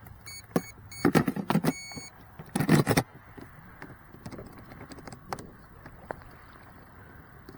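A short run of high electronic beeps from the RC boat's speed controller as its battery is plugged in, the startup tones. Plastic clicks and knocks from the battery connector and hull come with it, then light handling noises.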